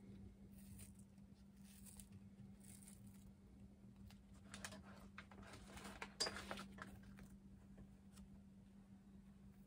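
Faint scratching and peeling of a Kubota ZD21 mower's seat switch, its glued plastic layers being worked apart by hand: a few short rustles, the loudest about six seconds in, over a steady low hum.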